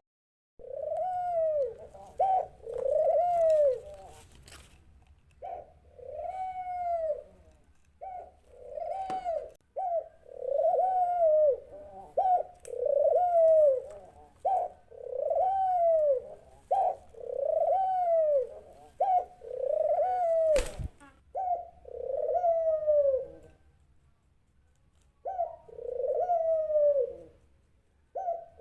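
A dove cooing over and over: a long series of low, arched coos, each often led by a short note, with a brief pause near the end. A sharp click sounds about two-thirds of the way through.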